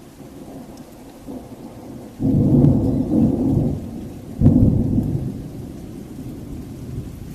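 Thunder in a thunderstorm: a low rumble, then two sudden loud peals of thunder about two seconds apart, each rolling off slowly, with rain falling.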